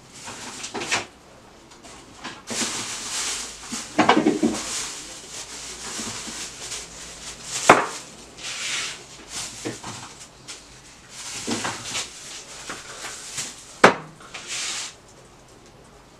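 Plastic bags rustling and things knocking as food is taken out of a refrigerator and set down on a table. Two sharp knocks stand out, about eight seconds in and again near the end.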